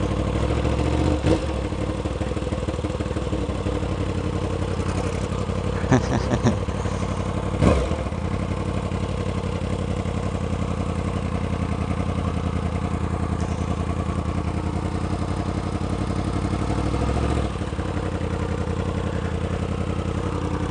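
Sport motorcycle engine running steadily at low revs as the bike rolls slowly, with a few brief louder sounds about 1, 6 and 8 seconds in. The low engine sound drops slightly a few seconds before the end.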